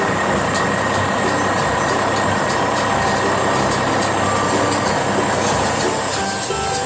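Heavy vehicle engine running steadily.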